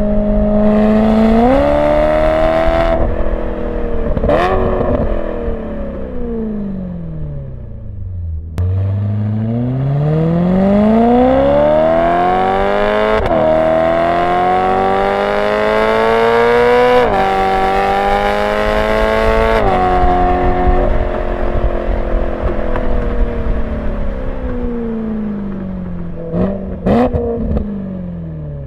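BMW E92 M3's 4.0-litre V8 through a Borla ATAK exhaust without venturis, heard from a microphone on the car. The engine pulls up through the gears with rising pitch and sudden steps at each upshift. Twice it comes off the throttle and the pitch falls away, with a short sharp rev spike at each slowdown.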